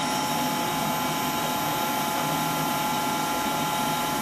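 Steady hum of running laboratory apparatus: an even hiss with several high, steady whine tones, unchanging throughout.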